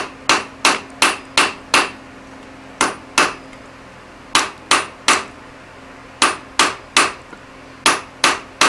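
Hand hammer striking a hot 4140 steel hammer head on an anvil: sharp ringing blows in quick runs of two to six, about three a second, with short pauses between runs, as the bevel on the face end is blended. A faint steady hum runs underneath.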